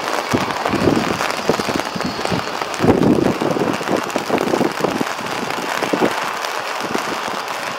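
Heavy rain crackling and pattering close to the microphone, with irregular gusts buffeting it, the strongest about three seconds in. A faint steady whine from a taxiing airliner's jet engines shows beneath in the first couple of seconds.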